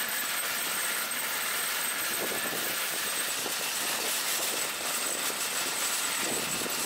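Metal shopping cart rolling over parking-lot asphalt: a steady rattling hiss from its wheels and frame.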